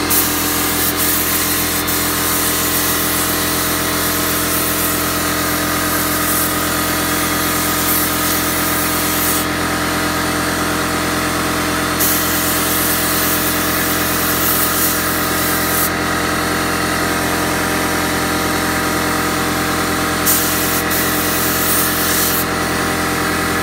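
Air compressor running steadily under the hiss of a gravity-feed paint spray gun spraying paint, really loud. The hiss eases off and comes back several times as the trigger is released and pulled again.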